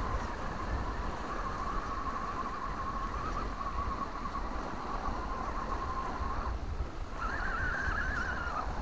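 RC rock crawler's electric drive motor whining under throttle as it climbs, the pitch wavering. It cuts out briefly past the middle and comes back higher. Wind rumbles on the microphone throughout.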